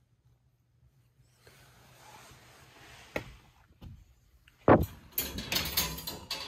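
A wire pet cage being handled: a couple of sharp clicks, a loud thump, then about a second of rattling and clattering.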